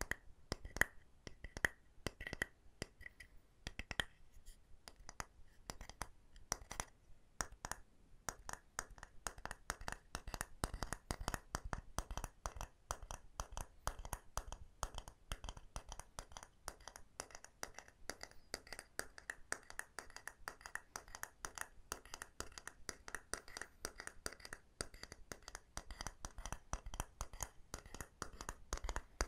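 Rapid, light tapping on wooden objects, about four to six sharp taps a second in a continuous run.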